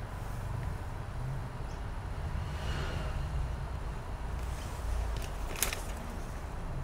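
Low steady background rumble, with one sharp click a little over five and a half seconds in.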